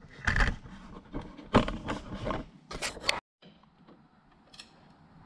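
Several short handling noises in the first three seconds, then a sudden cut to faint room tone.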